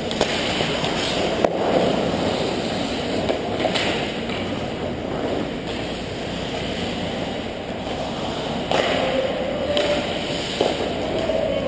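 Ice hockey play in an indoor rink: steady skate-on-ice scraping and arena noise, with a few sharp clacks of sticks and puck.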